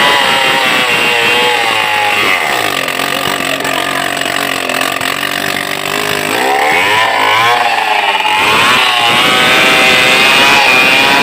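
Stihl 070 two-stroke chainsaw running: at high revs, dropping to idle about two seconds in, then revved back up to full throttle around six to seven seconds and held there.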